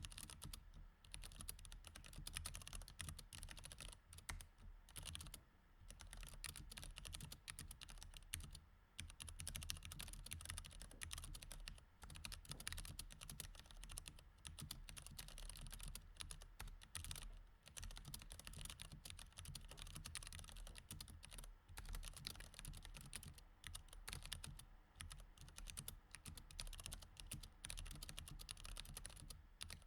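Continuous typing on a mechanical keyboard with Cherry MX Red switches: a dense, quiet run of key clicks broken by a few brief pauses.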